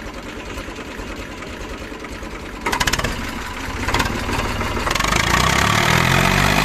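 Eicher 485 tractor's diesel engine running at idle with a fast, even knock, with two brief clatters about three and four seconds in. Near the end the revs rise and the engine gets louder.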